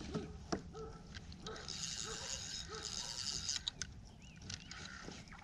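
Spinning reel being cranked in spurts to bring in a hooked fish: a high whir with a regular beat about twice a second and a few sharp clicks, stopping and starting again about two seconds in.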